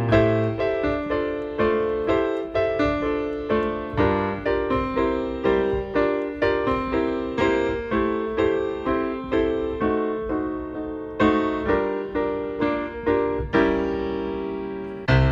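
Background piano music: a steady run of struck notes, each ringing and then fading.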